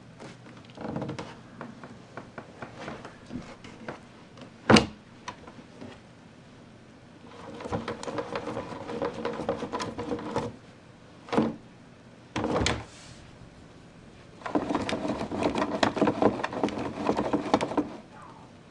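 A plastic ride-on toy car (Little Tikes Cozy Coupe style) being pushed and steered across the floor. Its plastic wheels rumble and rattle in two stretches of a few seconds each, with a few sharp plastic knocks and thunks between them.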